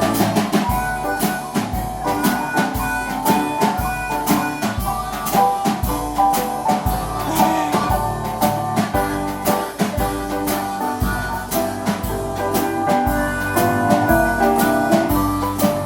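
Band music with guitar, bass notes and a steady drum beat.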